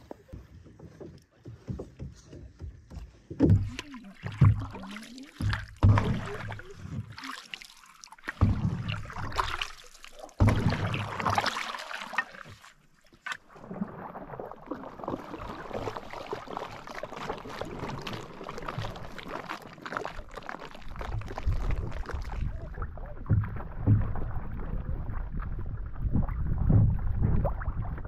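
A small boat being launched and paddled on a lake. For the first half, irregular knocks against the hull mix with splashes. Then comes a steady wash of water and wind noise as the boat moves along.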